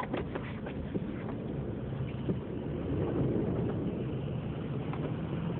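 A four-wheel-drive vehicle's engine running steadily, heard from inside the cabin, with a few faint clicks in the first second or so.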